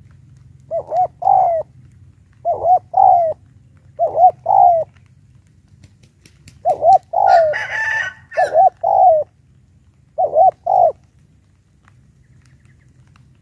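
Spotted dove cooing: six short phrases of two or three low notes, a couple of seconds apart, the territorial song a decoy dove gives to challenge a wild one. A brief harsher, higher sound with a few sharp clicks overlaps one phrase near the middle.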